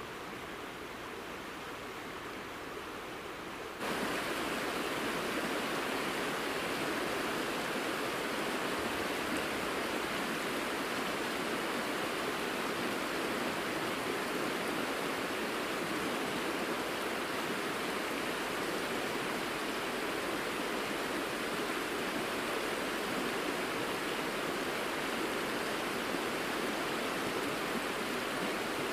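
Azusa River, a clear mountain river over a gravel bed, flowing with a steady rushing of water. It jumps louder and fuller about four seconds in.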